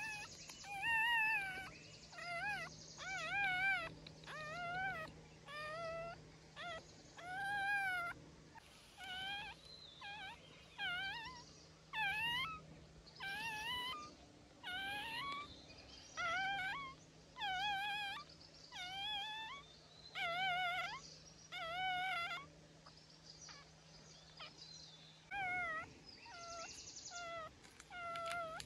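A very young puppy crying over and over, in short, high-pitched cries that waver in pitch, about one a second, with a brief pause a little before the end.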